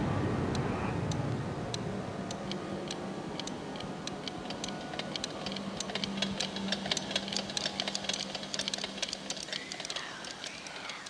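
Horror-film sound design: sharp ticks that start slowly and speed up into a rapid clatter, over a low steady hum, while a noisy wash fades out at the start.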